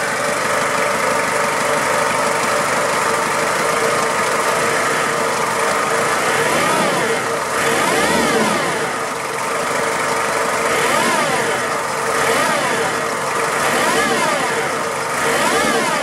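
Toyota 5L four-cylinder diesel idling under the open bonnet of a Hilux. In time with the engine there is a rattly, bearing-like noise and a whizzy whine that don't sound correct. The timing belt and water pump have already been replaced, so they are not the cause.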